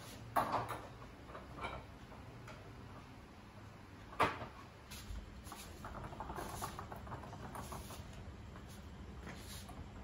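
Faint handling noises: scattered scrapes and rustles, with a sharper knock about four seconds in.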